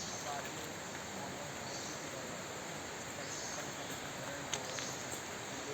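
Insects trilling in a high, steady chorus over an even background hiss, with a couple of faint clicks near the end.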